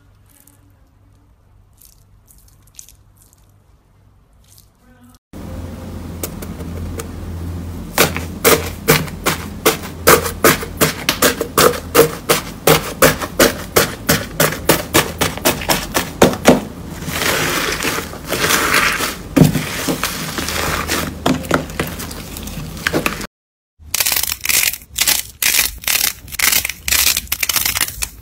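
Slime pressed and kneaded by hand, crackling and popping: quiet at first, then from about five seconds in a run of sharp crackles about two or three a second, thickening into a denser crunching stretch. After a short silence near the end, soft clay-like slime squeezed between the fingers crackles again in quick pops.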